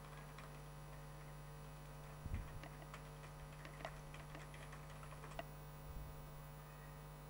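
Faint computer keyboard typing, a string of irregular key clicks, over a steady electrical hum, with one low thump a little after two seconds in.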